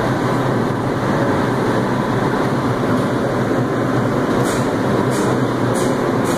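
R142 subway train standing at a station platform, with a steady, loud rumble from the train and station and a few short hisses in the last couple of seconds.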